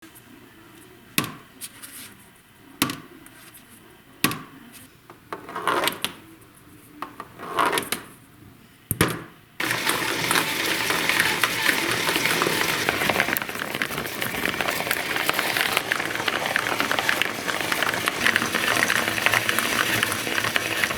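Ping pong balls knocking on a homemade cardboard marble run, a few separate knocks and clicks at first. About ten seconds in, the machine's small DC motor switches on, and a steady motor whir joins a dense, continuous clatter of balls being carried up and rolling through the cardboard.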